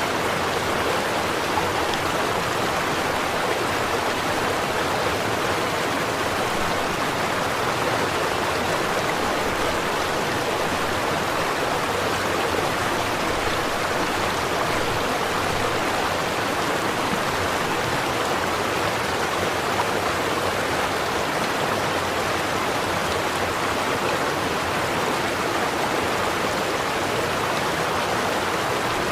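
Small stream flowing, a steady, even rush of water over stones.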